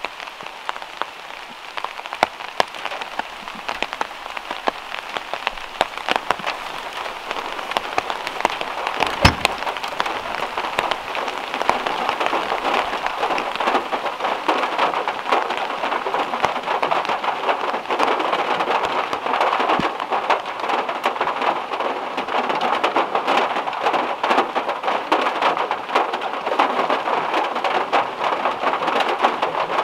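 Heavy rain on a car's metal roof: a steady hiss of rain with many sharp individual drop ticks. It grows heavier over the first ten seconds or so, then keeps up.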